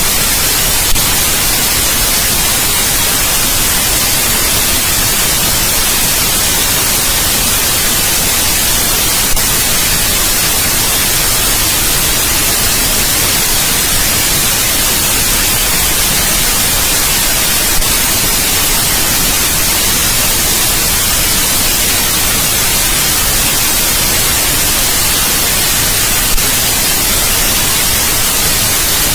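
Steady, loud white noise: an even hiss across the whole range with no tones or changes. A faint click comes about every eight and a half seconds.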